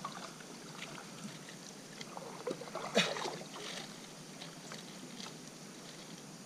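Light water sounds and small knocks around kayaks on the water, with one sharp, louder knock about three seconds in.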